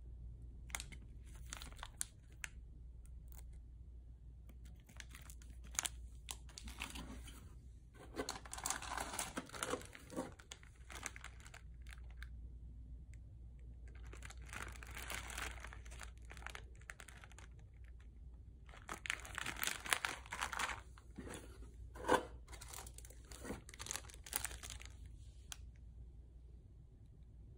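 Plastic snack wrappers crinkling and rustling as they are handled and turned over, in several bursts with short pauses between them and a few sharp crackles.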